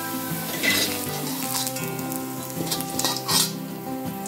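Carrot sticks sizzling in hot cooking oil in a wok, with a metal slotted spatula scraping the wok twice as the fried carrots are lifted out.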